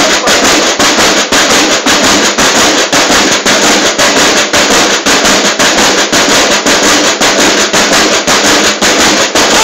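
Marching-band snare drums of a school drum corps playing a loud, steady drum cadence. The strokes come so fast and dense that they blur into a harsh rattle with a regular beat.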